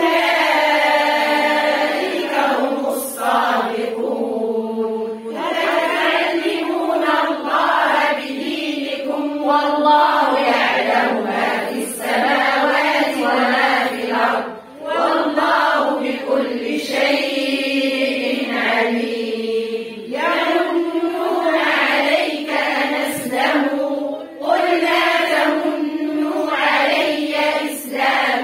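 A group of women reciting the Quran in unison with tajweed, a chanted recitation with long held vowels. They pause briefly for breath several times.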